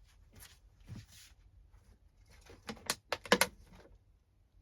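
A hard object thrown or dropped for Foley, landing in a quick clatter of sharp knocks about three seconds in, after a few softer handling sounds.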